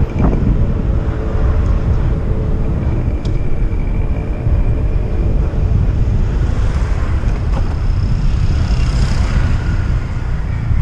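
Steady wind rumble on the microphone from a moving bicycle ride, with a few faint short clicks.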